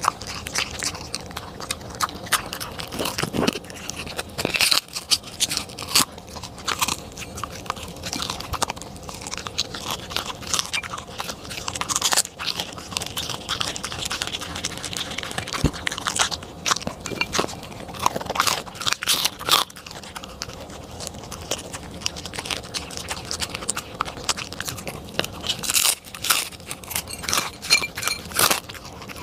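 A corgi crunching and chewing a dry, crumbly treat off a plate, close to the microphone: irregular sharp crunches, several a second, with short pauses between mouthfuls.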